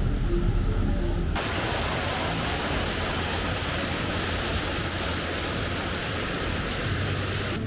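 Background music for about the first second, then a sudden cut to a water fountain splashing into a pond: a steady, even rushing hiss.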